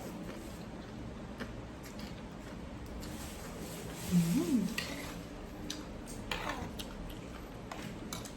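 Eating a bowl of noodle soup: scattered clicks of utensils against the bowl and small mouth sounds. About four seconds in there is a brief sound that rises and falls in pitch, the loudest moment.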